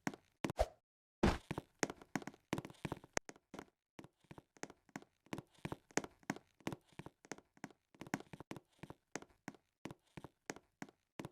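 Series of faint, light taps and clicks at irregular spacing, a few a second, stopping just after the end.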